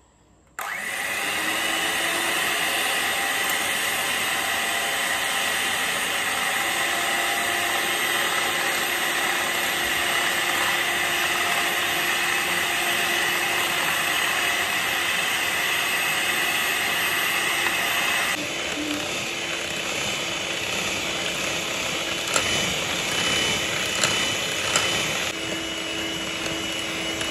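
Electric hand mixer switched on about half a second in and running steadily, its beaters whipping instant coffee, sugar and hot water in a glass bowl toward a cream. A few sharp ticks come near the end.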